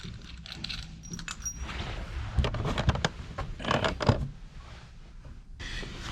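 Metal tools and fittings being handled: small clinks, scrapes and rustles, with a few sharper knocks partway through, as a new valve is prepared for fitting.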